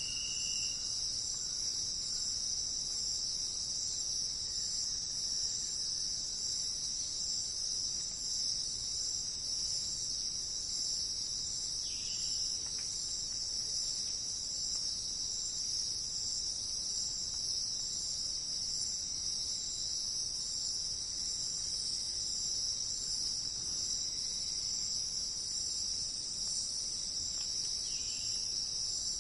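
Forest insect chorus: a steady, unbroken high-pitched drone of many insects. A few faint short calls break in at the start, about twelve seconds in, and near the end.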